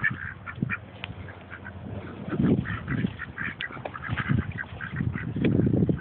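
Ducks quacking, many short calls in quick succession, with several louder low rumbles in between.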